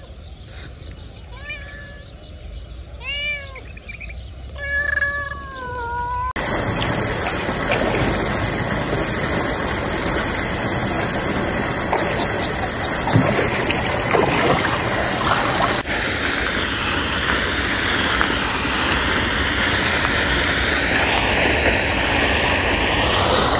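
A cat meowing three or four times in short calls over the first few seconds, the last one falling in pitch. About six seconds in the sound cuts abruptly to a louder, steady rushing noise that runs on with no clear source.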